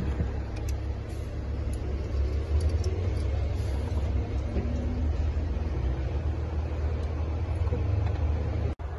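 A steady low mechanical rumble, with a very short dropout near the end.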